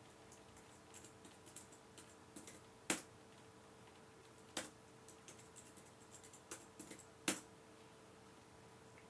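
Sony VAIO laptop keyboard being typed on in short, irregular runs of key clicks for a Windows login password, with a few louder single keystrokes among them. The typing stops about seven seconds in.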